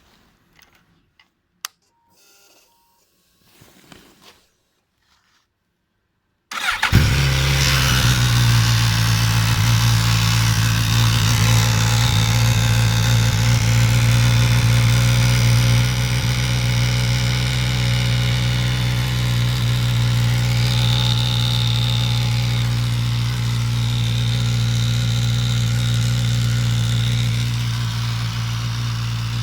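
Suzuki GSX-S1000 motorcycle's inline-four engine started from cold. A few faint clicks come first, then about six and a half seconds in the engine fires and settles into a steady idle with a rattle, a strange noise heard on the cold engine.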